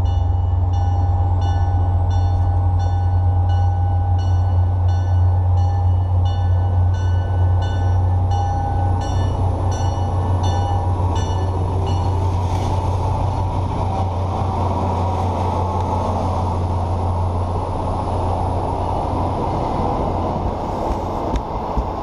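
MBTA commuter rail train passing close by: the diesel locomotive's engine runs with a loud low hum, with a bell ringing about twice a second until the locomotive goes past. Then the passenger coaches roll by with a steady rumble and a few clicks.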